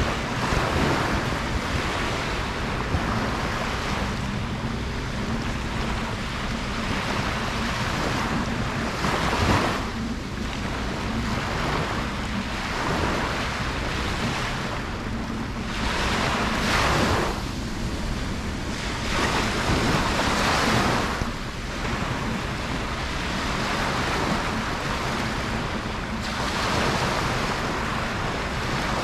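Ocean waves breaking and washing up a beach, surging every few seconds over a steady surf hiss, with a low rumble underneath.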